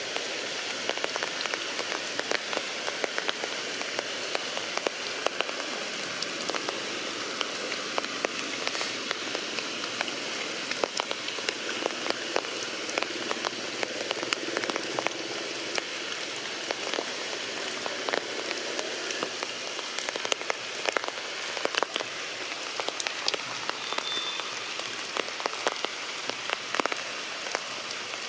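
Heavy rain falling steadily, with many individual drops spattering sharply close by.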